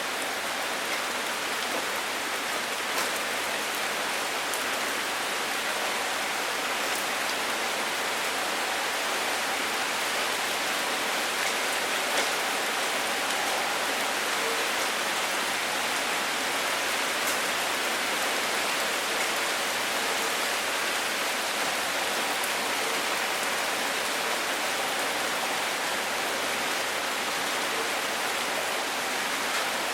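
Steady rain falling: an even, hissing wash with faint scattered ticks of individual drops.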